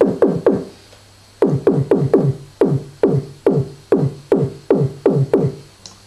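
Synthesized kick drum from the Massive software synth, triggered again and again at about five hits a second, each hit a short thud that drops quickly in pitch. There is a pause of about a second soon after the start, then the hits run on in quick runs.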